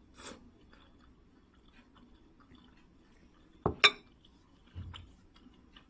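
A person slurping up a noodle strand just after the start, then chewing with faint small clicks. About four seconds in comes a sharp clink, a bowl or chopsticks set down on the table, followed by a softer thump.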